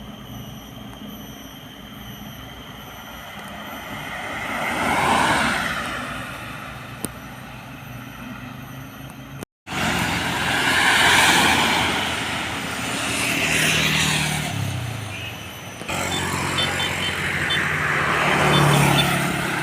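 Road vehicles passing one after another, each swelling up and fading away as it goes by, four pass-bys in all, with a brief cut-out about halfway through.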